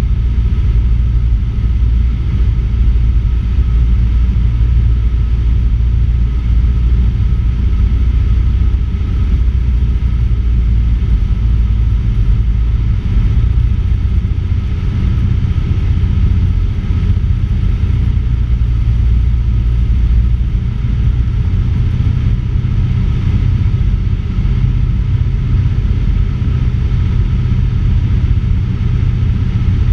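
Cessna 150's four-cylinder Continental O-200 engine and propeller running steadily in flight, mixed with wind rush over a camera mounted under the wing.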